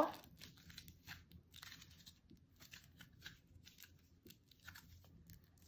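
Aluminium foil being crumpled and squeezed by hand into a small ball: faint, scattered crinkles and crackles.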